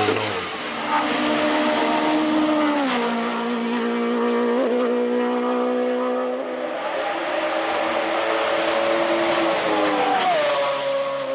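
Race car engine running hard on a hillclimb run. Its pitch holds steady for a few seconds at a time and drops in a step about three seconds in and again near the end, as at gear changes or lifting off for a corner.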